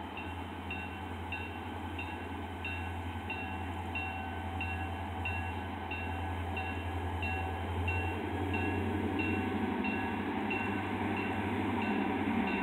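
Railroad crossing bell dinging steadily, about one and a half strikes a second, while the rumble of an approaching train's locomotive grows louder.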